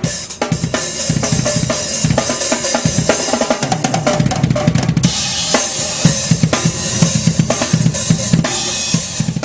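Outro music with a full drum kit playing a steady beat: kick drum, snare and cymbals.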